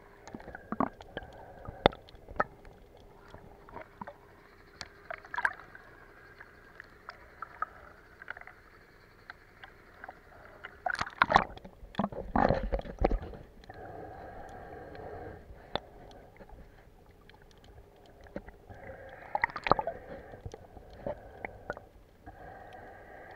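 Underwater sound picked up on a diver's camera: scattered clicks and crackles, a louder rumbling burst about eleven seconds in, and a few stretches of a steady hum.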